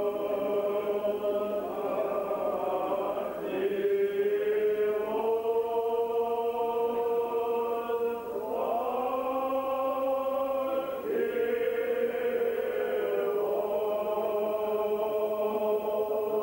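Old Believer church choir singing slow liturgical chant, long held notes moving step by step to a new pitch every couple of seconds.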